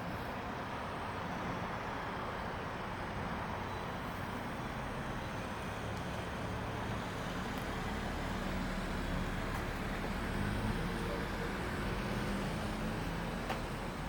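Steady low engine hum over outdoor traffic noise, the hum growing a little stronger about halfway through.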